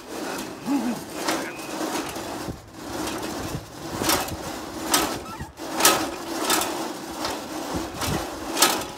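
Oiling the drive chain of a tobacco transplanter with a squeeze bottle of lubricant: a handful of short, sharp clicks and rattles from the bottle and the chain parts, over a steady low hum.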